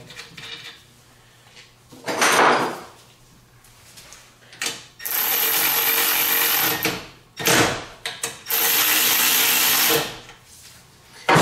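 Cordless ratchet running 13 mm nuts down onto the A/C line fittings at the condenser, to snug them up before they are torqued. It runs steadily for about two seconds midway, then again for about a second and a half near the end, with a few shorter bursts of noise before.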